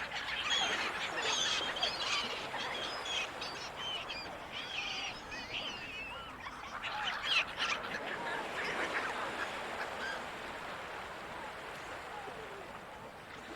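Gulls calling over the ocean: a flurry of repeated squawking calls that thins out after about eight seconds, over a steady wash of surf.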